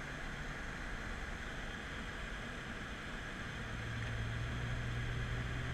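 Inside the cabin of a BMW F10 M5: a steady hum of road and wind noise under the low drone of its V8 engine, which grows louder about two-thirds of the way through while holding its pitch.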